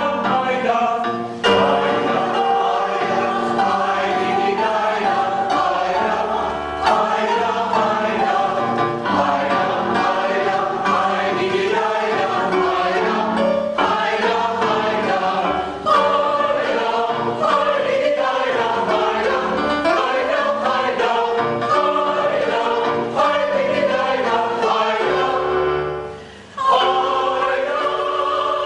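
A choir of adult voices singing together, with short breaks between phrases and a deeper pause near the end before they sing on.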